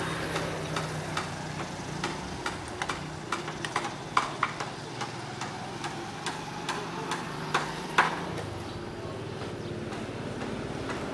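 Street ambience with a motor engine running steadily, its pitch dropping about eight seconds in, and scattered sharp clicks and taps throughout.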